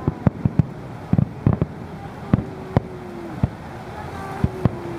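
Aerial firework shells bursting in an irregular series of sharp bangs, about a dozen over the few seconds, several coming in quick clusters.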